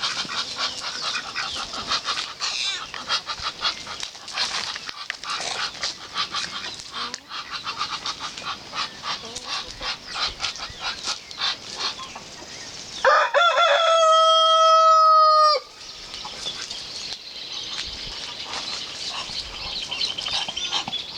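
A flock of chickens clucking and chattering, with a rooster crowing once, loud and long, about two-thirds of the way through.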